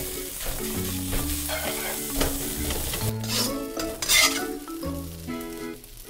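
Metal ladle scraping and clinking against a wok while fried rice sizzles as it is stir-fried, with one loud scrape a little past four seconds in. Background music plays underneath.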